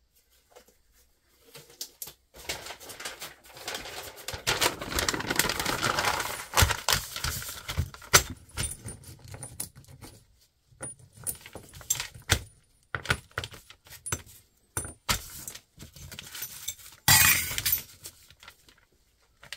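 Brown paper rustling as it is handled and laid out, with small metal parts (aluminium channel pieces and threaded rods) clinking as they are picked up and set down. A long stretch of rustling comes first, then scattered clinks and a louder rustle near the end.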